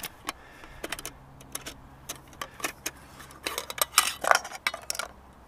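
Handling a nested aluminium camping cook set: scattered clicks and rustles as it is slid out of its mesh storage bag, then a quick run of metal clinks and taps about three and a half seconds in as the pot lid with the utensils on it is lifted off.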